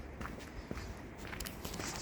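Footsteps of people walking, a few uneven steps over a low rumble.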